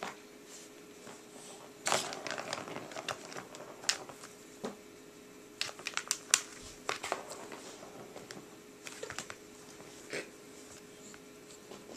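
A cat rubbing and rolling against a plastic ball-track toy: irregular rustling with sharp clicks and taps of fur and paws on the plastic, busiest from about two to seven seconds in.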